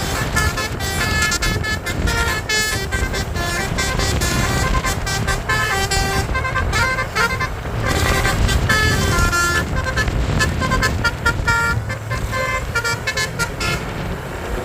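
Bus telolet horn of the 'basuri' type, a multi-tone musical air horn, playing a quick tune of short notes that keep changing pitch, over the low rumble of the bus.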